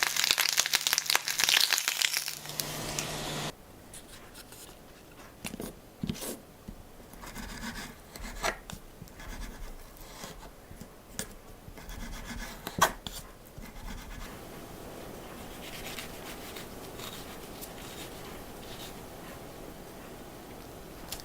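A loud crackling hiss that cuts off suddenly about three and a half seconds in, followed by soft rubbing and scraping with scattered clicks and knocks, as of things being handled in a kitchen.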